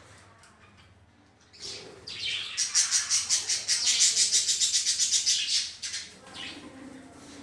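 Budgerigars and ring-necked parakeets chirping in a home colony. A loud run of rapid, evenly spaced high notes, about nine a second, lasts about three seconds in the middle.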